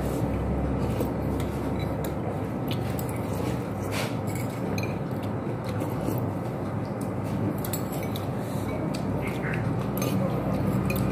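Spoons and forks clinking and scraping against ceramic noodle bowls as two people eat, in scattered light clicks over steady background noise.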